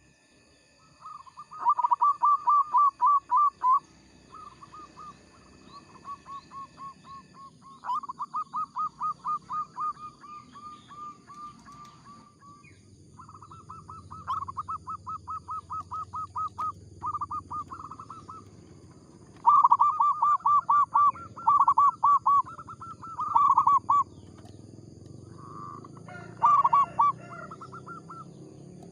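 Zebra dove (perkutut) cooing in repeated phrases, each a rapid run of short, evenly spaced coos lasting a few seconds, separated by brief pauses.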